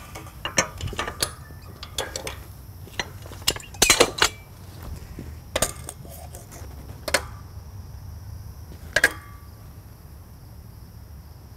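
Irregular sharp metallic clicks and clinks from hand work on a steel frame: at first the ratchet of a high-lift farm jack being pumped to raise a corner, then single clinks of tools and a level against the steel beams. There is a tight cluster of clinks about four seconds in.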